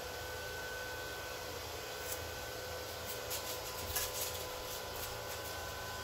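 Neato D7 robot vacuum running: a steady whine of even tones over a hiss, with a run of light clicks and taps between about two and five and a half seconds in.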